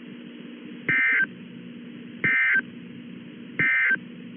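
Emergency Alert System end-of-message signal: three short, identical bursts of warbling data tones, a little over a second apart. They mark the end of the broadcast severe thunderstorm warning. A steady low hum runs underneath.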